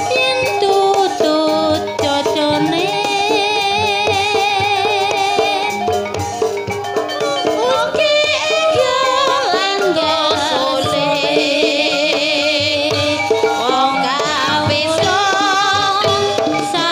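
Live ebeg (Javanese hobby-horse dance) music in a dangdut-style arrangement: percussion and drums under a sung melody, with long wavering held notes.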